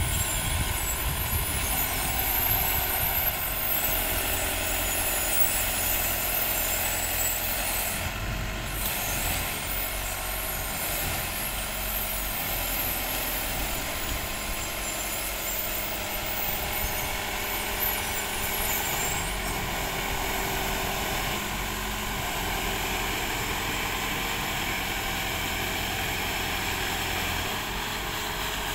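Engine of an amphibious aquatic weed-harvester boat running steadily under load, with water churning around its hull and wheels as it works through reeds.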